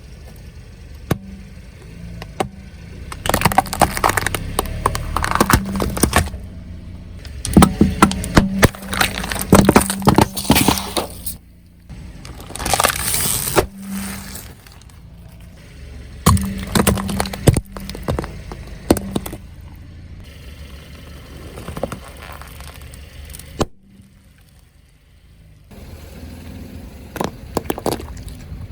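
A car's tyres rolling over brittle objects and crushing them, giving several bursts of loud cracking and breaking over the low sound of the car's engine running.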